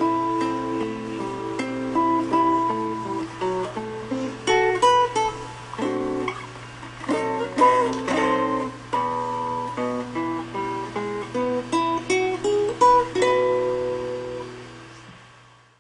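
Instrumental background music of plucked, strummed guitar, fading out near the end.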